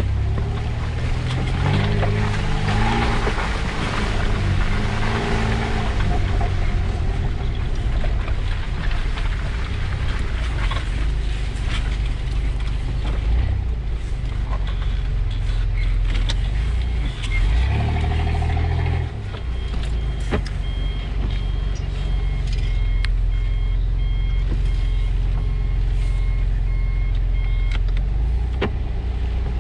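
Off-road 4x4's engine running as it drives a rough dirt track, the revs rising and falling in the first few seconds and again around the middle. From about two-thirds of the way in, a high electronic beep repeats on and off for several seconds, then stops.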